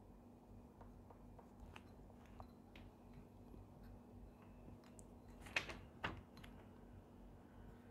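Faint ticks and scratches of a pencil writing on a paper worksheet, with two louder short rustles a little past halfway.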